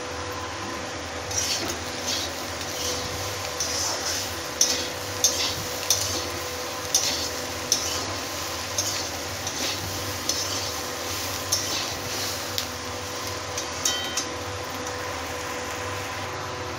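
A metal spatula scraping and clinking against a steel kadai as fried potatoes and onions are stirred and tossed, with a light sizzle underneath. The strokes come irregularly, from about a second in until near the end.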